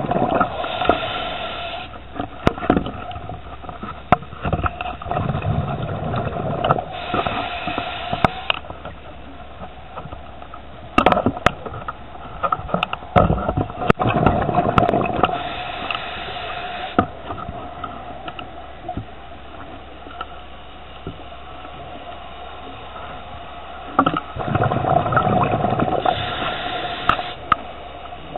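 Scuba diver breathing through a regulator underwater: a hiss on each inhale, then a low rush of exhaled bubbles, four breaths several seconds apart. A few sharp knocks fall in between.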